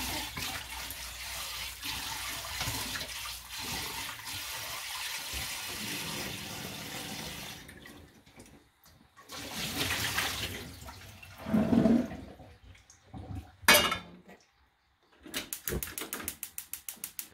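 Kitchen tap running into a small metal saucepan in the sink: a steady rush of water that stops about seven and a half seconds in. After that come a few short clatters and a sharp knock, and near the end a quick run of even clicks, about ten a second.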